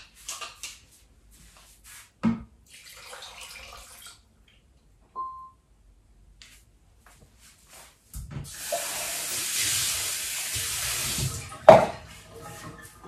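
Kitchen tap running into a stainless steel sink for about three seconds, ending with a sharp knock as it stops. A smaller knock comes about two seconds in and a short electronic beep about five seconds in.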